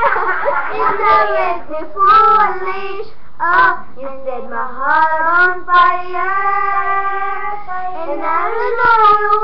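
A single high-pitched voice singing a melody, with pitch bends and a long held note past the middle.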